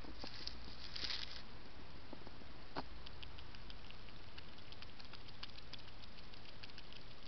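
A hedgehog rustling in the grass, then feeding at a shallow dish: a quick, irregular run of small clicks and smacks from about three seconds in, over a steady hiss.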